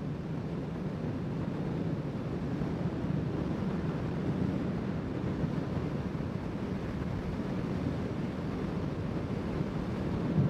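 Steady wind rush over the microphone on a moving motorcycle, with the Honda CBR650R's inline-four engine running steadily underneath.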